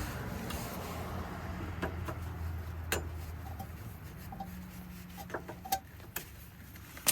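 A few scattered light clicks and knocks from tools and parts being handled, over a low steady hum.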